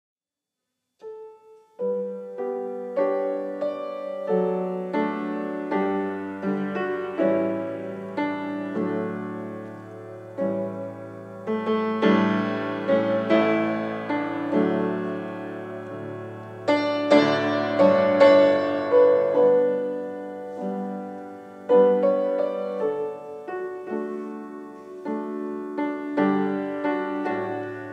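Piano playing a slow instrumental piece, starting about a second in, with single struck notes ringing and fading and louder chords swelling up twice in the middle.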